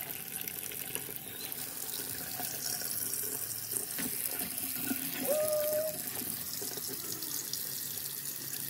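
Kitchen tap running, its stream splashing onto live crabs in a plastic basin in a stainless-steel sink. A short pitched sound rises and holds briefly about five seconds in.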